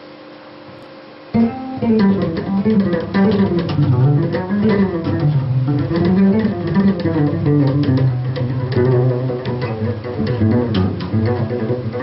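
Bass guitar played solo, improvising a rock line of quick plucked notes that starts about a second and a half in after a faint steady hum. From about eight seconds in it settles into repeated low notes.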